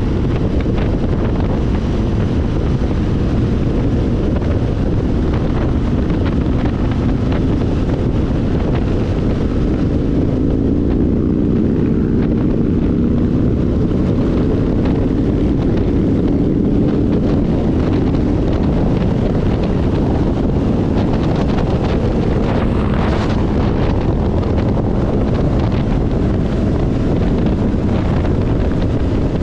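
Steady wind rush buffeting the microphone of a motorcycle riding at road speed, with the motorcycle's engine droning underneath and its pitch shifting slightly around the middle.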